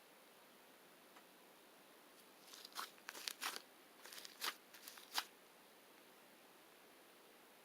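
A short run of crisp crackles and clicks, a handful of sharp snaps about two and a half to five seconds in, against near silence.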